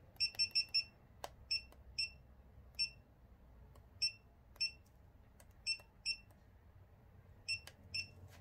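Short, high electronic key beeps from a handheld inkjet coding printer's touchscreen as a stylus taps its buttons. A quick run of five comes at the start, then single or paired beeps every half second to a second, with a few faint taps between them.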